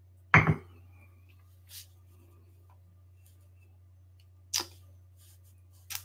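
A ceramic coffee mug set down on a desk with a sharp knock, close to the microphone. A second, lighter knock comes about four seconds later and a small click near the end, over a steady low hum.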